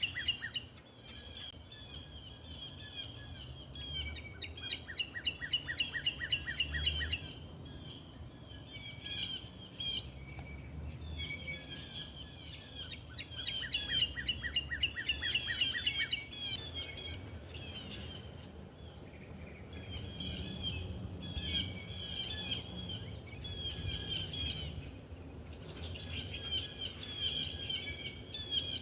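Small birds chirping in rapid runs of repeated high notes, in bouts that start and stop throughout, over a faint low rumble.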